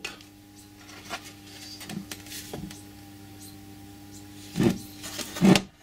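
Parts of a lathe's compound slide being handled on a rag-covered bench: a few faint clicks, then two louder knocks of metal near the end, over a steady hum.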